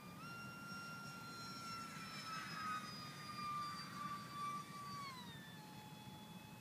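Radio-controlled model airplane's motor and propeller: a steady high-pitched whine that steps up in pitch just after the start, swells as the plane passes overhead, and glides down in pitch about five seconds in.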